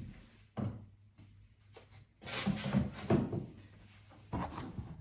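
Canvas panels being handled and set down on a tabletop: a couple of light knocks near the start, then scuffing and rustling as a panel is slid into place, and another short knock near the end.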